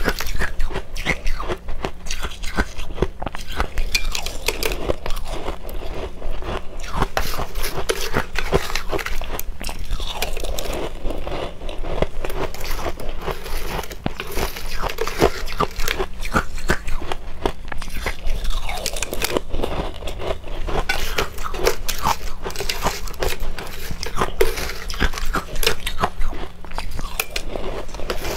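Close-up crunching and chewing of ice chunks dusted with matcha powder: many small, irregular crunches, with a metal spoon moving through the ice in a steel bowl.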